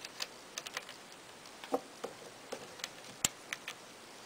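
Scattered small metallic clicks and taps, about a dozen, the loudest about three seconds in: an Allen key, small machine screws and lock washers being worked and handled as a bearing cap comes off a Kleinschmidt TT-98 teletype's frame.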